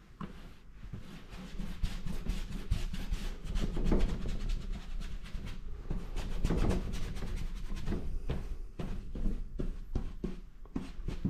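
Paintbrush scrubbing acrylic paint onto paper laid flat on a table, in a rapid run of short brushing strokes.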